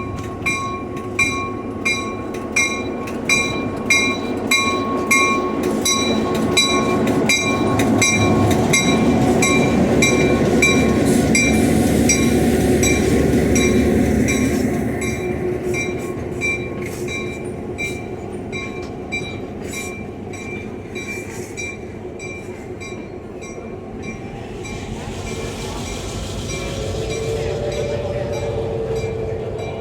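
A train running with a bell ringing steadily, a little over one stroke a second, through the first half. The train's rumble grows loudest midway, then eases as the bell stops.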